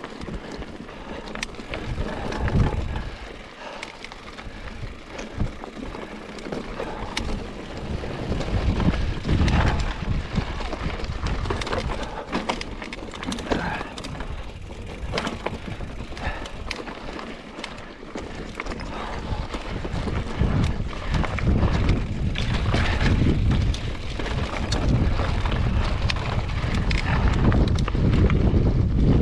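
Mountain bike being ridden along a dirt trail: wind rushing over the microphone, tyres rolling over the ground, and frequent clicks and rattles from the bike over bumps. The wind rumble grows louder over the last third.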